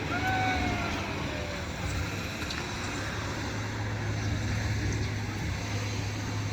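Diesel engines of heavy clean-up machinery running with a steady low drone. Near the start a falling whine sounds for about a second and a half, and a few faint clanks come later.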